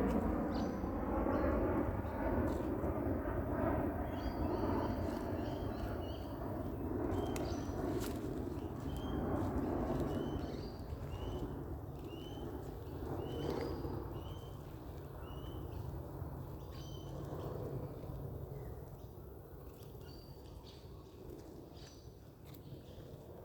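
Birds calling with short, high, repeated notes, most often through the middle, over a steady low rushing noise that fades toward the end.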